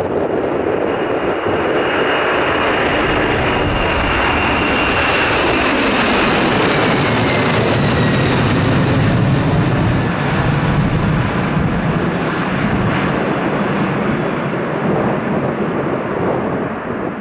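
A large airplane's engines passing close by: a loud, steady rush with a high whine that slides down in pitch in the middle as the aircraft goes past.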